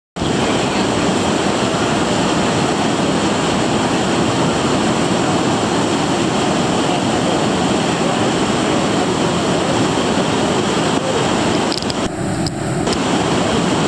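Whitewater rapids of an artificial slalom channel rushing steadily as loud, continuous churning water.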